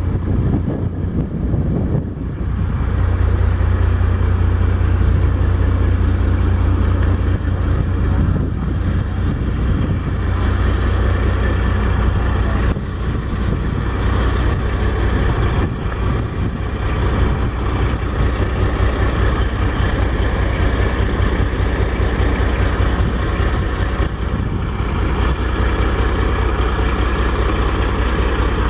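Heavy diesel truck engine of a 2018 Peterbilt idling with a steady low rumble, louder from about two seconds in.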